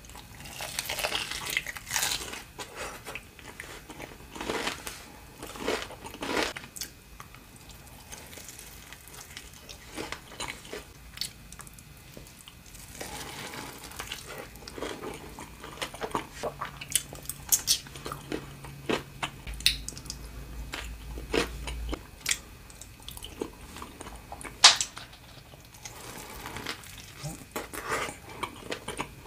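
Close-up crunching bites and chewing of a deep-fried sushi roll with a crisp crumb crust, irregular crisp crunches throughout, the loudest one near the end.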